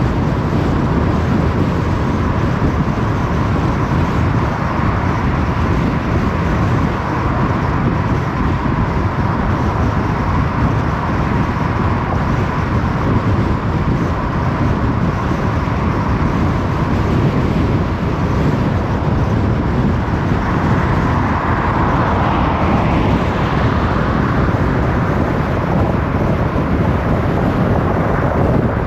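Car driving at a steady speed: continuous road and engine noise with a faint steady whine. About two-thirds of the way through, a brighter hiss swells for a few seconds and fades.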